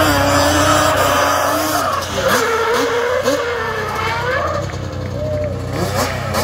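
Quad bike engine running at high revs, then revving up and down from about two seconds in, with tyre skid noise as it spins on asphalt; the engine fades near the end.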